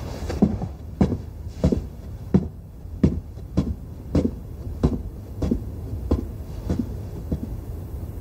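Suspense score: a low drum beating steadily, about one and a half hits a second, each hit dropping in pitch, over a low rumble.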